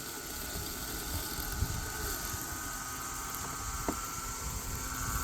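RoboUP T1200 Pro robotic lawn mower running, its electric motors giving a faint steady whine over a constant hiss, with some low irregular rumbles.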